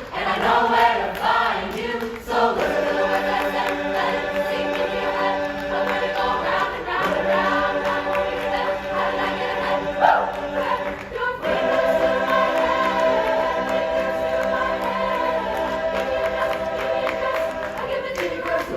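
High school chamber choir singing long held chords, with the chord changing a few times. A brief sharp sound cuts in about ten seconds in.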